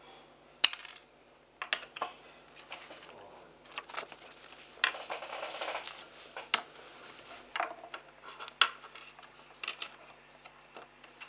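Scissors snipping through thin bamboo sticks with sharp clicks, and the short wooden pieces and scissors knocking and clattering on a table as they are handled, with a brief scraping stretch in the middle.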